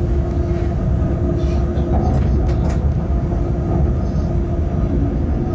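Bombardier Traxx electric locomotive running along the track, heard from the driver's cab: a steady low rumble with a constant hum and a few sharp clicks from the wheels on the rails.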